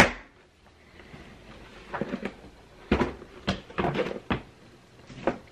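Handling noise from a stuck-on sticker being pulled off a cardboard box: a sharp click at the start, then a cluster of short knocks and rustles about two to four and a half seconds in.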